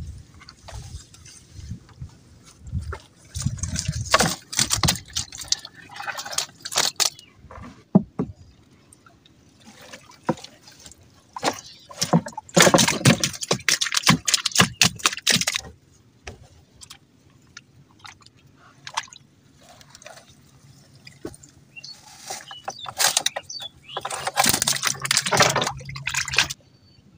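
Live fish thrashing in shallow water in the bottom of a wooden boat, wet splashing and slapping in three bouts of several seconds each, with quieter stretches of dripping between them.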